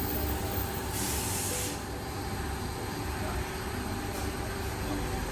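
A short hiss of compressed air about a second in, lasting under a second, over a steady low rumble of workshop noise.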